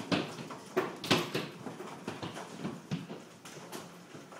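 Large, baseball-size hailstones hitting the house's roof and awning: irregular sharp knocks and bangs, a couple louder than the rest, over a constant patter of hail.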